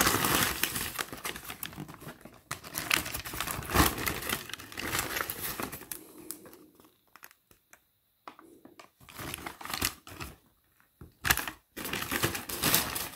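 Paper takeaway bags rustling and crinkling as they are handled and opened and the food is taken out. The crinkling comes in bursts, busy at first, mostly quiet in the middle, with another loud burst near the end.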